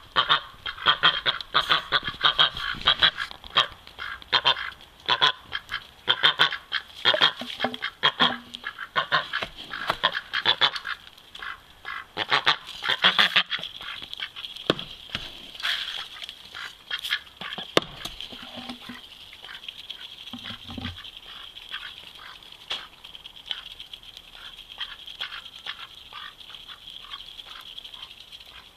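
Aylesbury ducks quacking in quick, loud runs through the first half, then going quieter, with many soft clicks as they peck at grain scattered on the snow.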